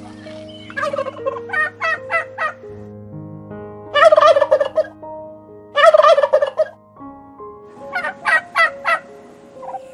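White domestic turkey tom gobbling four times: a short rolling gobble about a second in, two louder gobbles around four and six seconds, and another rolling one near the end.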